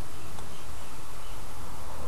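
Steady background hiss with a low hum underneath, with no distinct handling sounds standing out.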